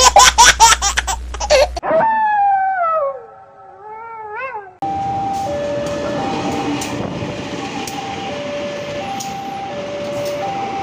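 An edited-in animal sound effect: a quick run of loud pitched cries, then a long falling howl-like wail with a few short wavering rises. About five seconds in it cuts to a diesel-hauled passenger train rumbling past a level crossing, under the crossing's warning alarm of two tones taking turns, each about half a second.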